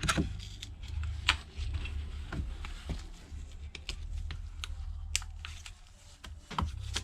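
Pry tool working along under the glass of an iPad Pro screen, giving scattered small clicks and scrapes, over a low steady hum.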